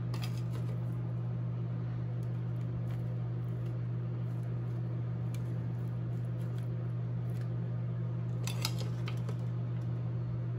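A steady low hum throughout, with a few light taps and scrapes of a spoon adding shredded cheese to a baked potato in foil, the clearest a little before the end.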